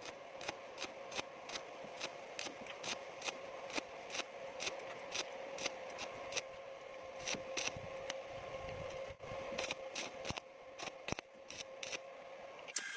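Stick-welding arc crackling with sharp, irregular pops, a few a second, over a steady hum.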